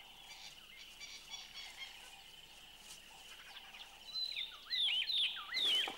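Quiet outdoor ambience with a thin steady high-pitched hiss or drone. From about four seconds in comes a quick run of short, high chirps, each sweeping sharply down in pitch.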